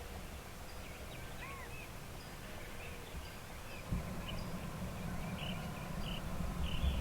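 Wild birds chirping and calling in short notes over a low outdoor rumble. About four seconds in there is a single knock, after which the low rumble is louder.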